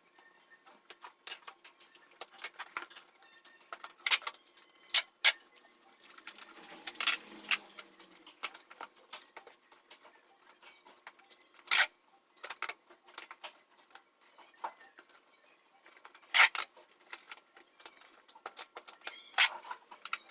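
Hands handling a keyboard and its packing materials: scattered, irregular sharp clicks and taps, with a short rustle about seven seconds in.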